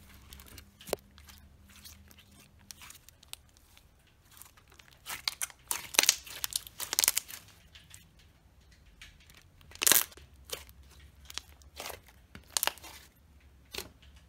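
Thick, glossy slime being squished, pressed and stretched by hands, making irregular sticky crackles and squelching pops, in clusters with the loudest bursts near the middle and again about ten seconds in.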